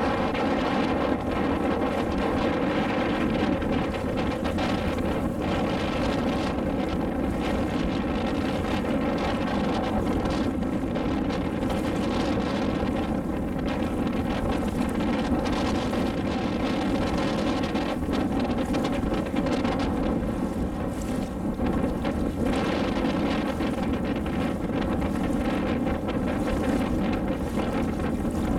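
Motor launch's engine running steadily at an even pitch, with wind noise on the microphone.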